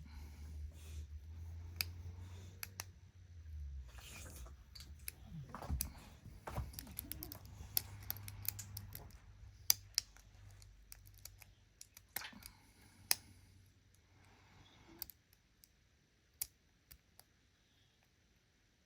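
Lock picks working the pin stack of a custom challenge lock: irregular small metallic clicks and scrapes, denser in the first half and sparser later.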